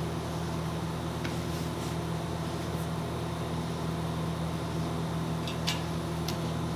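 Stick (arc) welding machine humming steadily, with a few sharp crackling ticks near the end as the rod is worked against the plate.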